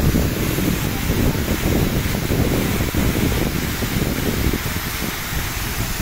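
Steady rushing roar of water pouring over the curved weir of the dam-made New Athos waterfall, with a low, fluctuating wind rumble on the microphone.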